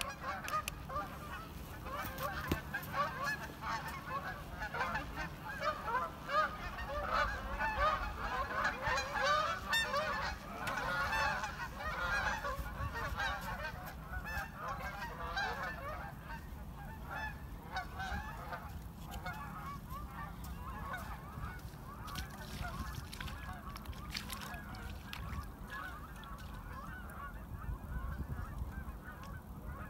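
A flock of geese honking as they fly overhead, many overlapping calls, thickest in the first half and thinning out toward the end.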